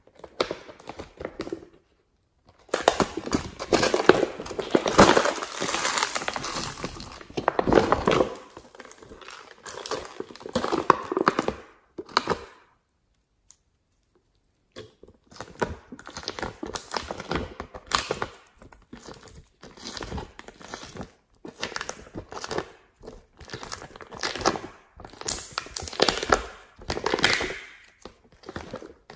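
Glossy slime being scooped and pulled out of a flexible plastic palette tray by hand: sticky squishing and crackling mixed with crinkling of the thin plastic, in irregular bursts. The sound is densest early on, stops briefly about halfway, then returns as scattered crackles.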